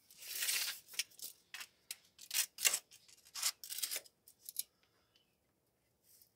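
Steel tape measure being pulled out and handled: a quick run of short, sharp scraping and clicking strokes that stops about four and a half seconds in.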